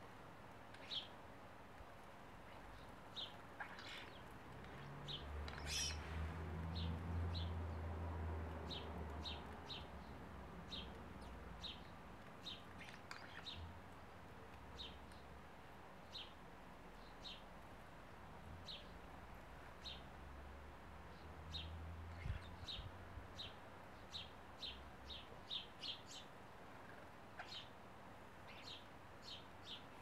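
Garden birds chirping: short, high chirps repeated every second or so, coming thicker near the end, over a low rumble that swells about five seconds in and fades by ten.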